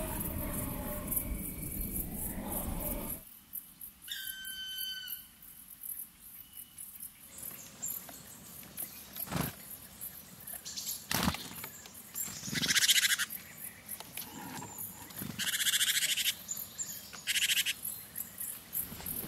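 Wild floodplain-forest sounds from an unattended drop-rig recording: bird calls over a fast high ticking of insects. After a dense chorus in the first few seconds the recording cuts to a quieter scene, with one clear pitched call about four seconds in, scattered clicks, and three loud, harsh calls near the end.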